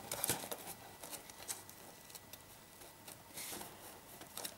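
Faint handling noise of cardboard and paper strips: soft rustling with scattered light taps and ticks.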